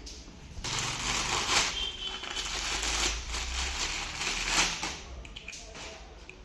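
Packaging being handled and unwrapped: irregular rustling and crinkling that starts about half a second in and dies down near the end.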